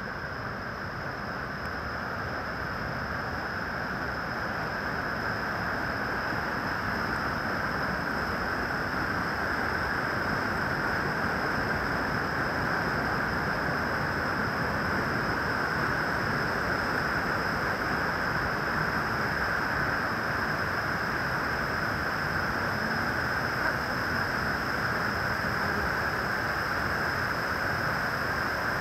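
Steady rushing of water pouring through a weir outflow into a lake, growing slightly louder over the first several seconds.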